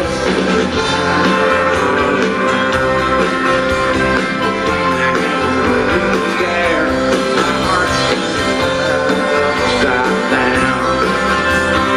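Live band playing a country-rock song: strummed acoustic guitar over electric bass and drums, with a voice singing.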